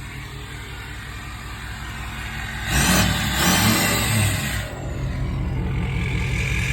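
2016 Ford F350 pickup's engine running just after being started, with a louder, rushing surge about three seconds in that lasts around two seconds, like a brief rev.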